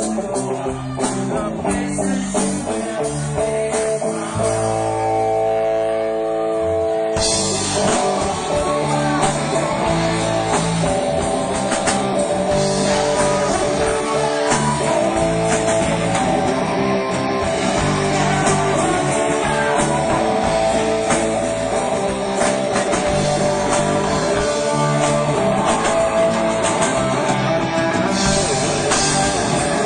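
Live rock band playing, led by guitar. The opening is sparse, with held notes, and the full band comes in with drums about seven seconds in.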